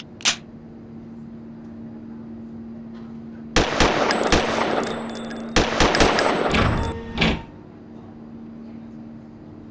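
Pistol gunshots in two rapid volleys, a few seconds in and again about a second later, with a last single shot after them, over a steady low hum. A few sharp clicks come at the very start.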